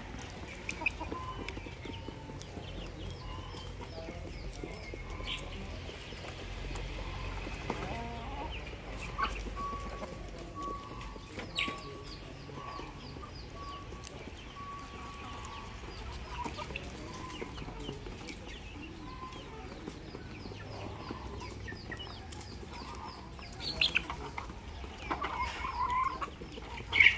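A flock of fighting chickens clucking and calling as they peck at feed, with small high chirps throughout and a few louder calls near the end.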